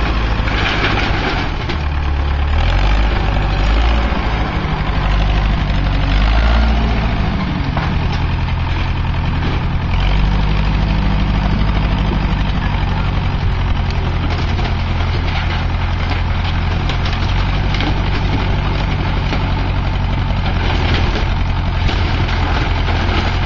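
Engine of a heavy hydraulic machine running during a house demolition, its pitch rising and falling under changing load for the first several seconds, then holding steady. A few brief cracks of wood can be heard.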